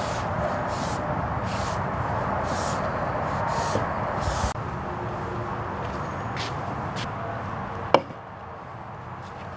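Hand work on wood pieces being glued and clamped: several short scraping or rasping strokes over a steady background noise, then a single sharp knock about eight seconds in, after which it is quieter.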